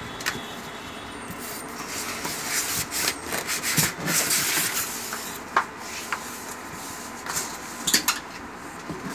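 Cardboard carton and polystyrene foam packing being handled and lifted out by hand: rubbing and scraping, busiest about two to five seconds in, with a few sharp knocks, two of them close together near the end.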